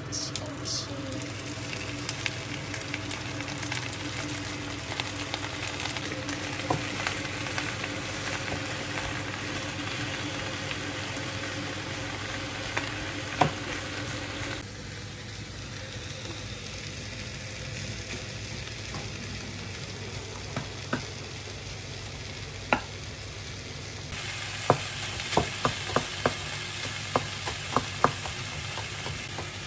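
Steady sizzle of food frying in a pan, with sharp taps of a utensil against it. The sizzle drops suddenly about halfway through and comes back louder near the end, where the taps come in a quick run.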